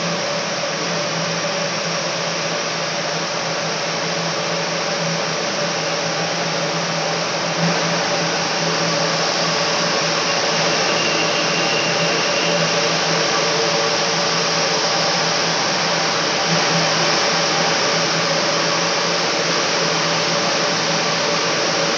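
Rows of ring doubling frames running, a loud, steady whirr of many spinning spindles with a constant low hum underneath.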